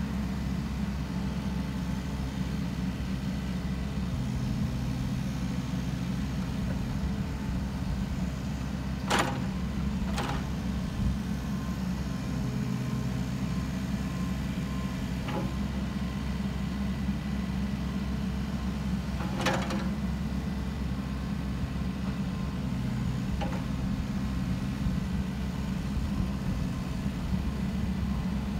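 2017 Caterpillar 302.7D CR mini excavator's diesel engine running steadily as the boom, arm and bucket are worked, with a few sharp knocks from the working machine.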